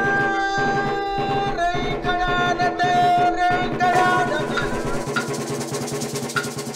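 Music with a drum beat and a melody of long held notes.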